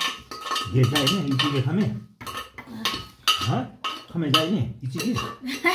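Dishes and cutlery clinking at a meal table in a run of irregular light clicks, with people talking over it.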